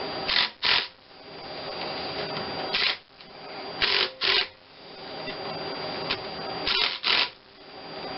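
Short rasping bursts of a tool running bolts into the timing cover of a Geo Metro G10 three-cylinder engine, about six strokes, mostly in pairs a third of a second apart.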